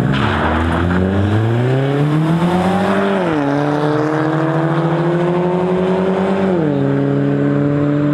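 Two cars launch side by side and accelerate hard. The engine note climbs steadily, drops at an upshift about three seconds in, climbs again and drops at a second upshift about six and a half seconds in.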